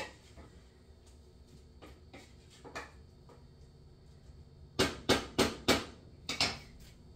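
Spatula knocking against a pot while stirring apple pie filling: a few faint clicks, then four quick sharp knocks about five seconds in and two more a second later.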